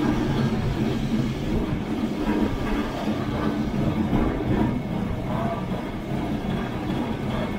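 Lisbon Tram 28's vintage electric tramcar running along its rails, heard from aboard: a steady low rumble of wheels and motor.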